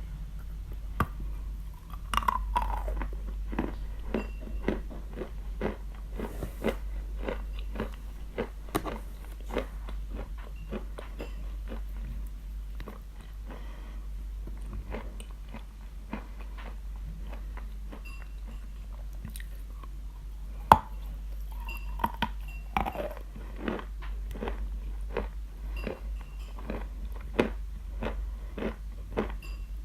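A person biting and chewing pieces of Khrapovsky lump chalk: a quick, uneven run of dry crunches, with sharper bites about two seconds in and a loud one about two-thirds through.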